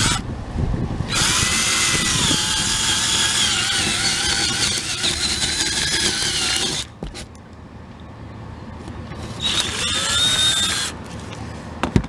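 Cordless drill spinning a 15/16-inch spade bit, boring through the trailer roof's wood decking. It runs for about six seconds, stops, then runs again briefly near the end.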